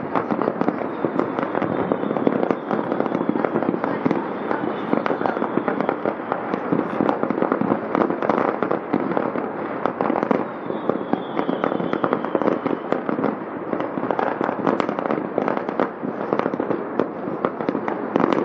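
Many fireworks bursting at once across a city: a continuous, dense barrage of overlapping bangs and crackles with no gaps.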